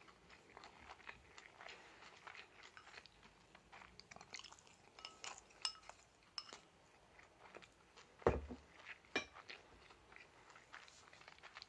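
Someone eating rice from a ceramic bowl: chopsticks clicking and scraping against the bowl, with quiet chewing. About eight seconds in there is a single thump as the bowl is set down on the wooden table, followed by a sharp clink.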